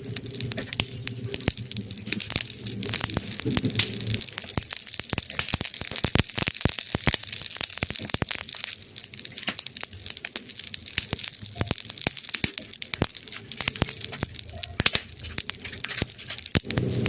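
Wood fire crackling and popping over a steady hiss, with a dense run of sharp snaps in the middle and one louder pop near the end. A low rumble of flame sits under the crackle at the start and returns near the end.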